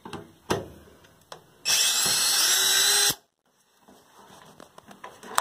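Cordless drill-driver backing out a screw: a few light clicks, then the drill runs for about a second and a half with a slightly rising whine and stops abruptly.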